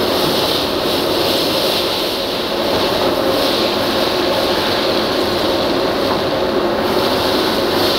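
Wieland FS-216 industrial wet-and-dry vacuum running steadily, air rushing through the suction nozzle as it pulls metal chips and coolant out of the inside of a metalworking machine.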